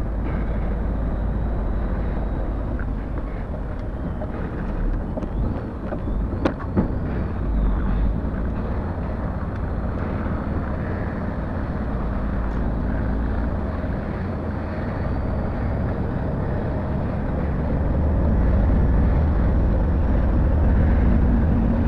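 Heavy truck's diesel engine and road noise heard inside the cab as it drives slowly through a turn: a steady low rumble, with two sharp clicks about six and a half seconds in. The engine grows louder about three-quarters of the way through.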